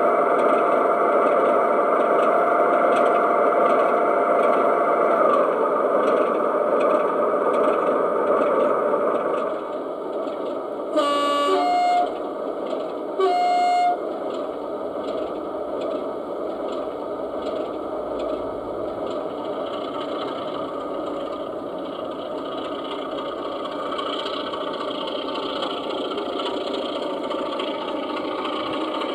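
Sound-equipped O gauge model of a Class 33 diesel locomotive playing diesel engine sound from its speaker, louder for the first nine seconds or so and then a little quieter, with two short horn blasts about 11 and 13 seconds in.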